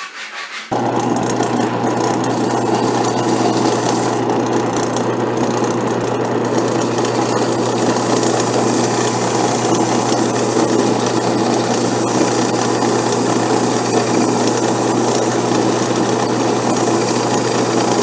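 Craftsman 12-inch wood lathe running steadily with a low motor hum, starting abruptly about a second in.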